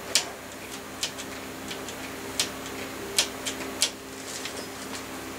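About half a dozen sharp, irregular clicks and taps from a mountain bike's V-brakes and brake lever being worked by hand while the brakes are adjusted, over a steady low hum.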